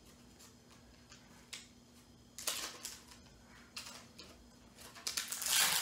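Hands handling a clear plastic stamp set and its packaging: light clicks and crinkling, with a short rustle about halfway through and a louder one near the end.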